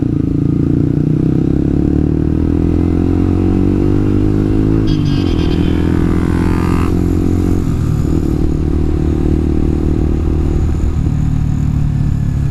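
Yamaha R15 v2's single-cylinder engine running under way, its pitch climbing slowly for about five seconds, then dropping sharply and running steady.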